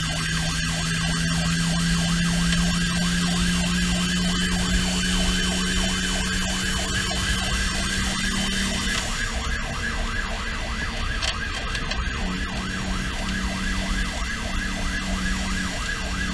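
Fire engine's electronic siren cycling in a rapid yelp, heard from inside the cab, over a steady low drone from the moving truck.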